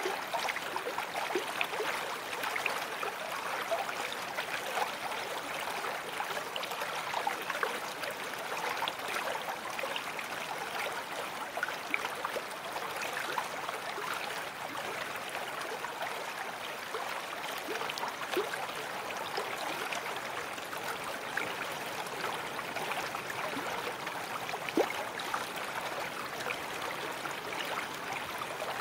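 Babbling brook: water running steadily with many small gurgles, and one louder gurgle near the end.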